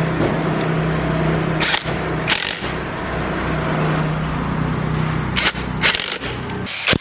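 A motor running steadily with a low hum, with several sharp knocks or clicks over it.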